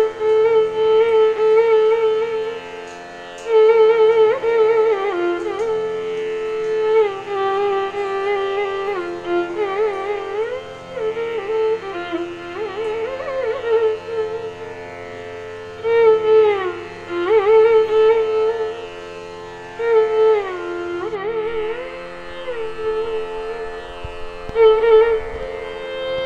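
Indian classical-style instrumental background music: one melodic line sliding and bending between notes over a steady drone.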